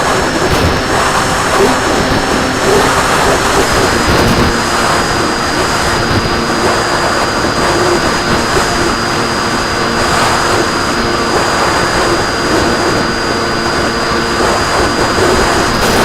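RC plane's motor and propeller running steadily in flight, heard through the onboard camera's microphone: a constant drone with rushing air and a steady high whine.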